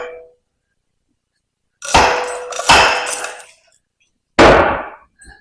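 Small sledgehammer striking the piston and rod assembly of a hydraulic baler cylinder, metal on metal, each clang ringing and dying away: two quick blows about two seconds in and a third about four and a half seconds in, with a light tap near the end. The blows drive the piston past its tight seal into the cylinder barrel.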